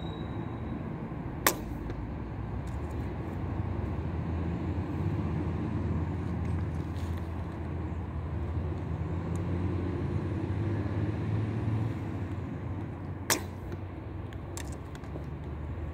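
Two shots from a 45 lb Daylite Monarq Korean bow loosed with a thumb release, each a single sharp snap of the string: one about a second and a half in, the second about twelve seconds later. A steady low rumble runs underneath.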